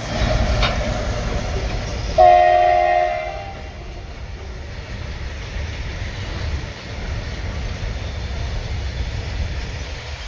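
A goods-train locomotive horn sounds one loud blast, about a second and a half long, a couple of seconds in, over the steady low rumble of a train.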